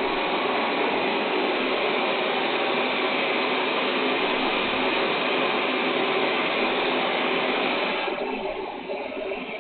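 Xiaomi Mi Robot Vacuum (first generation) running: a steady whir of its suction fan and brushes, heard through a home security camera's microphone. The sound drops noticeably about eight seconds in.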